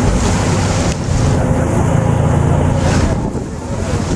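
Wind buffeting the microphone over the steady low rumble of a moving boat and the rush of water, easing a little about three seconds in.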